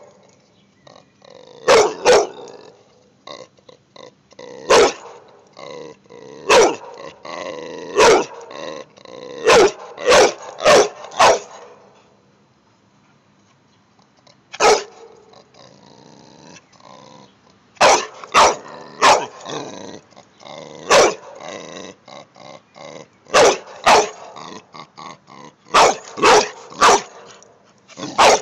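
Dog barking repeatedly, in sharp single barks and quick runs of two or three, with a quieter stretch of a few seconds in the middle.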